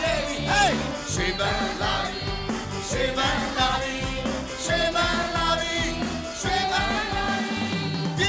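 Live stage music: singing into microphones with instrumental accompaniment, a flowing melody over a steady low beat.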